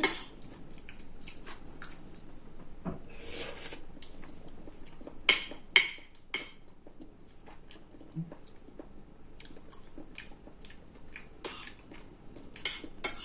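Mouth chewing and crunching crispy dried fish, with sharp crunches clustered about five to six seconds in and again near the end.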